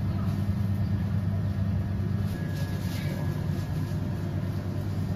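A steady low mechanical hum, even and unbroken.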